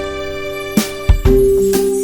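Background music: a gentle tune of held notes over a soft beat, with jingling bell-like percussion.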